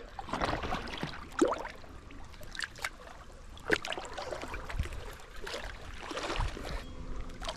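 Lake water lapping and sloshing around a camera held at the waterline, with scattered small splashes.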